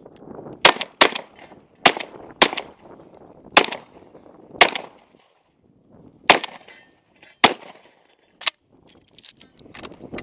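Shotgun fired about nine times in quick, uneven succession at steel poppers and flying clay targets, each shot a sharp crack, with a pause of about a second and a half after the sixth shot.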